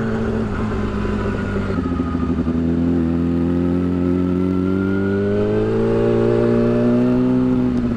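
Yamaha R6's inline-four engine with a short aftermarket exhaust, running under way on the road. Its note eases down about two to three seconds in, then climbs slowly and steadily as the bike gently accelerates.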